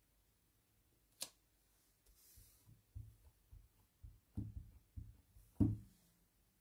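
Faint handling sounds of a clear acrylic stamp block: a sharp click about a second in, a run of soft dull taps as the stamp is dabbed on an ink pad, and a louder knock near the end as it is pressed onto the card.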